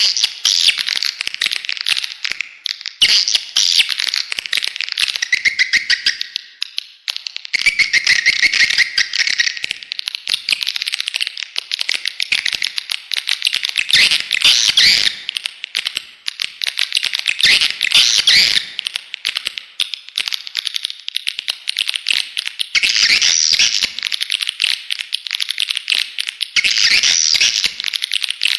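Swiftlet lure call of the kind played in swiftlet farming to draw edible-nest swiftlets to a nesting house: dense, rapid twittering chirps and clicks that swell and ease in phrases every few seconds.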